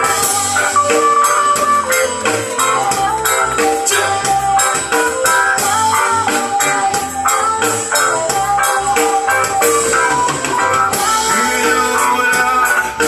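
Loud music playing, an instrumental passage without singing.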